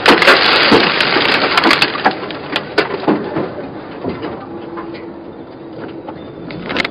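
Vehicle crash: a sudden loud crunch, then about three seconds of cracking and clattering as debris scatters, fading to steady road noise.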